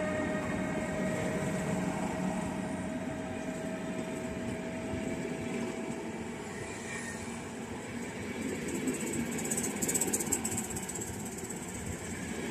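A train moving away: its steady mechanical whine fades and sinks slightly in pitch over a continuing rumble, with a short crackle about ten seconds in.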